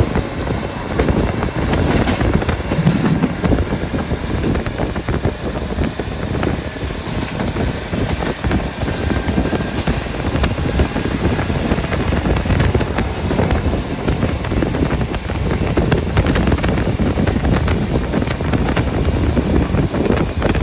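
KiHa 40 diesel railcar running along the line: a steady rumble of engine and wheels on the rails.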